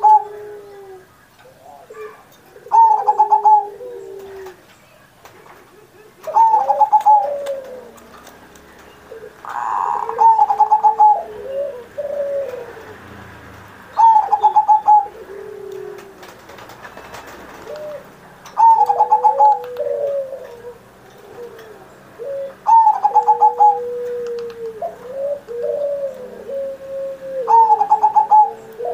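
Zebra dove (perkutut) cooing its song over and over, a phrase roughly every four seconds. Each phrase opens with a quick rippling run of higher notes and ends in lower, drawn-out coos.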